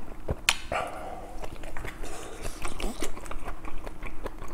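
Close-miked mukbang eating sounds: a person chewing a mouthful of rice and kimchi stew with wet mouth noises. There is a sharp click about half a second in, a brief hum just after it, and small scattered clicks and taps as chopsticks work in the lunchbox.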